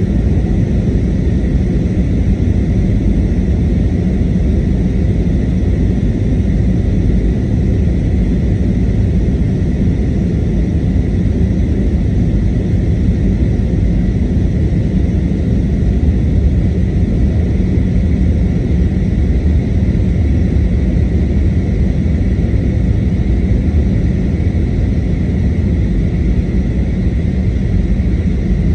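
Airbus A321neo cabin noise in flight: a loud, steady, deep rumble of engines and airflow, with a faint steady high whine above it.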